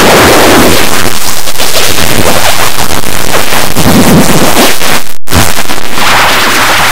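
Very loud, harsh distorted noise from a digitally mangled logo sound effect, cutting out for an instant about five seconds in.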